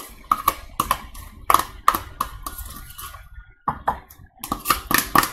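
A metal spoon scraping thick Greek yogurt out of a plastic tub and knocking against the tub and a bowl: a run of irregular clicks and taps, with a short pause a little past the middle.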